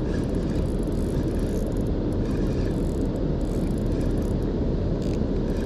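Steady low rushing of water pouring over a river dam spillway, even and unbroken.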